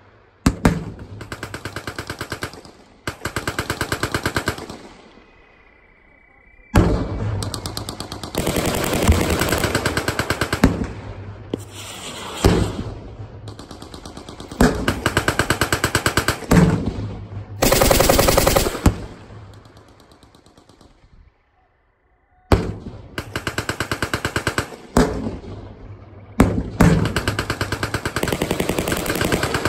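Machine-gun fire in long, rapid bursts of automatic fire, with short gaps between bursts. Twice, about five seconds in and again about twenty seconds in, the fire lets up for two or three seconds.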